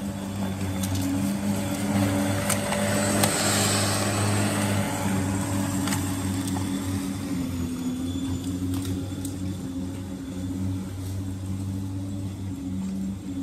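Electric lawn mower running while it cuts grass, a steady motor hum with a louder rushing whir between about two and five seconds in.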